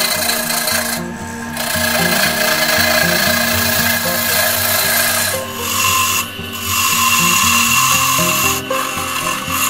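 Turning tool scraping into a spinning wooden blank on a wood lathe, a continuous rasping hiss of wood being cut with shavings coming off. The cutting breaks off briefly about a second in and again around six seconds, then resumes.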